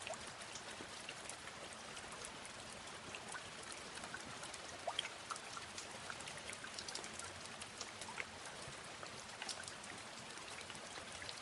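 Steady rain falling: an even hiss peppered with scattered sharper drop ticks, a few of them louder about five seconds in.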